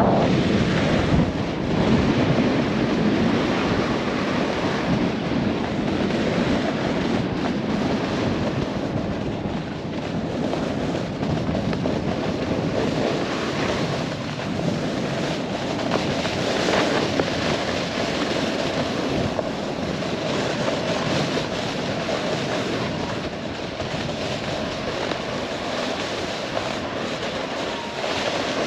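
Snowboard sliding and carving over snow at speed, with wind rushing over the camera microphone: a steady loud rush that swells and eases slightly as the rider turns.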